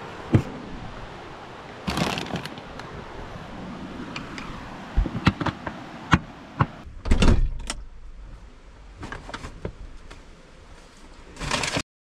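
Handling noises beside the truck: a plastic bag rustling and a string of knocks and taps against the vehicle's body, over a steady outdoor hiss. The sound cuts off suddenly just before the end.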